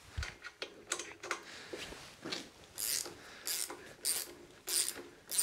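Hand ratchet wrench clicking as a freshly loosened bolt is backed out: scattered clicks at first, then from about halfway in a regular short run of clicks about every two-thirds of a second with each back-stroke.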